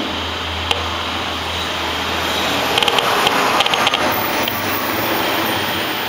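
RF analyzer's audio output giving a steady static hiss with scattered clicks, a cluster of them about three to four seconds in, as it picks up the pulsed radio transmissions of smart meters. A low hum underneath fades out about three seconds in.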